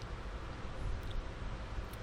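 Steady low hiss of the recording microphone's room tone, with nothing else standing out.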